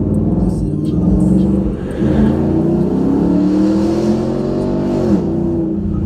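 Dodge V8 muscle car engine accelerating hard. There is a brief dip about two seconds in, then the pitch climbs steadily and drops sharply just after five seconds, as at a gear shift or lift-off.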